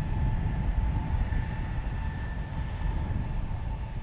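Jet engines of an Airbus A320-family airliner running as it rolls along the runway: a steady high whine over a low, fluttering rumble.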